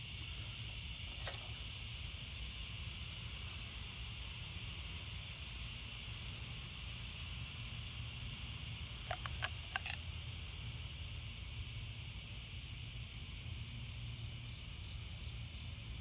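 Steady chorus of insects, a high-pitched drone that holds level throughout. A few light clicks come about a second in and again three times around ten seconds in.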